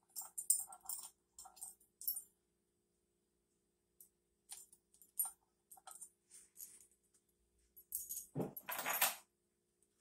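Metal hand tool clinking and rattling against the steel fitting on top of the flywheel of a 1964 Johnson 3 hp outboard, in short scattered jingles, with one louder metallic clatter about eight and a half seconds in.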